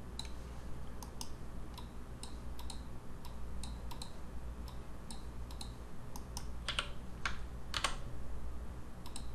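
Computer mouse clicks and keyboard key presses at an irregular pace, about a dozen sharp clicks, with a few louder key strokes about two-thirds of the way through, over a steady low hum.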